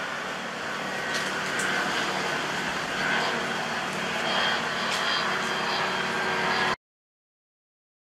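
Steady hissing outdoor ambience of a jungle trail, with a few faint high chirps, cutting off abruptly to silence near the end.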